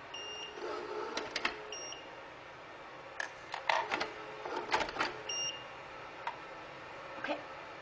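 Plastic clicks and knocks from a robot vacuum cleaner's parts being handled, with three short, high electronic beeps: one near the start, one about two seconds in and one about five seconds in.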